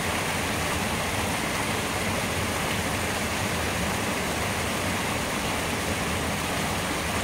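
River water rushing steadily over a low concrete causeway and churning into foamy white water below it.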